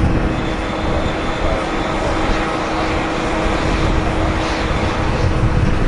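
Boeing 767-300 airliner's twin jet engines running at taxi power: a steady jet rumble and hiss with a constant held tone through it.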